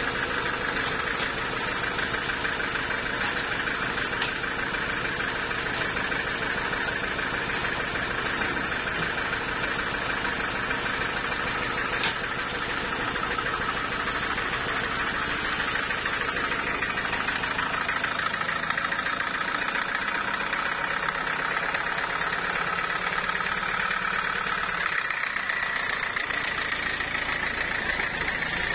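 Portable band sawmill running steadily while sawing a teak log: a continuous machine drone with a whine on top and no pauses. The low rumble thins out about two-thirds of the way through.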